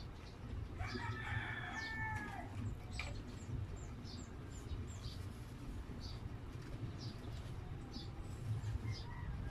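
A rooster crows once, about a second in, for about a second and a half, ending on a falling note. Faint small ticks and clicks follow as a plastic sauce cup is handled and squeezed.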